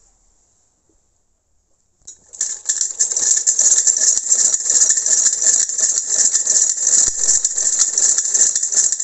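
Brother hand-crank sewing machine stitching: a fast, even clatter of the needle and mechanism that starts about two seconds in.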